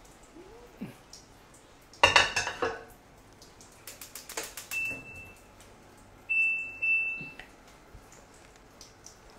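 Metal kitchenware clattering loudly about two seconds in, followed by a few light clicks and three short, high electronic beeps from a kitchen appliance.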